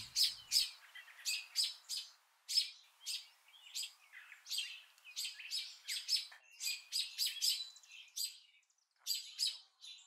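Birds chirping: a steady run of short, high chirps, a few each second, with a brief pause near the end.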